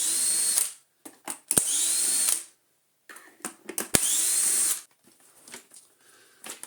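Cordless power screwdriver undoing the screws that hold the shell of a Miele S5 vacuum cleaner, run in three short spins of about a second each, each whine rising quickly and then holding steady. Sharp clicks between the spins.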